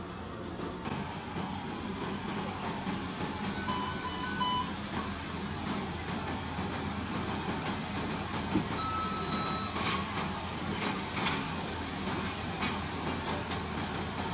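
Steady low hum of a car idling, heard from inside the cabin. A few short electronic beeps come about four seconds in, another beep about nine seconds in, and several sharp clicks near the end.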